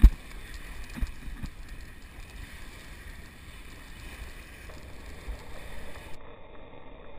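Wind buffeting an action camera's microphone over the wash of small waves on a sand beach, with a sharp low thump at the start and a smaller one about a second in.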